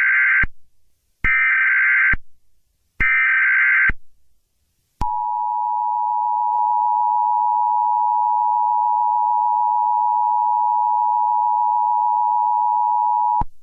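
Emergency Alert System tones: three roughly one-second bursts of screeching SAME digital data, then the steady two-note EAS attention signal held for about eight seconds, cutting off sharply near the end.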